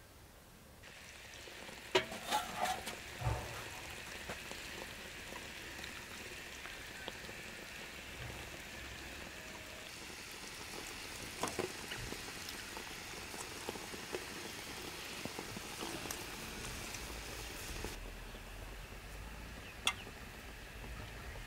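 Food sizzling in a metal pot on a wood stove: a steady hiss that starts about a second in, with a few sharp clinks and knocks, the loudest about two seconds in.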